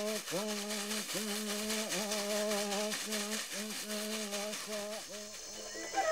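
A shaman chanting in a low male voice: short repeated phrases held on one note, each opening with a quick upward slide, over a fast, steady rattling. The chant fades near the end as flute music comes in.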